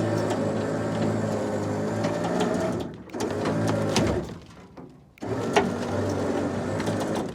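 Trailer winch motor running under load as it hauls the truck deck up, in three runs: a long pull, a short burst about three seconds in, and another pull from about five seconds in, with stops between.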